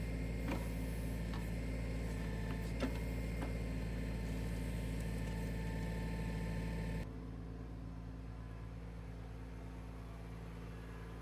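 LS compact tractor's diesel engine running steadily under backhoe work, with a few light knocks as the bucket works the dirt-clad stump. About seven seconds in the engine sound drops quieter and more distant.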